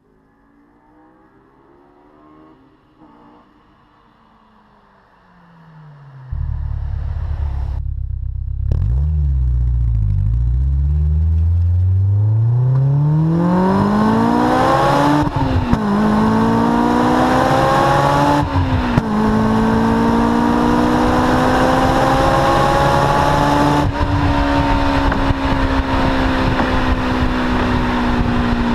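Honda S2000 four-cylinder engine through a Supersprint aftermarket exhaust. It starts faint, then turns suddenly loud and revs hard under acceleration, the pitch climbing steeply with brief breaks about 15 and 19 seconds in like gear changes, then holding high and rising slowly.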